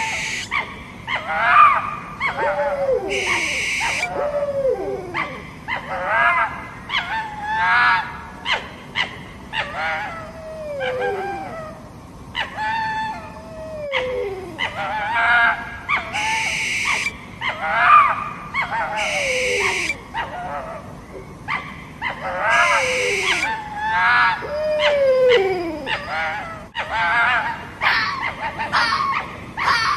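Fox-like yelps, whines and whimpers, one after another, many falling in pitch, broken about four times by a short hissing burst.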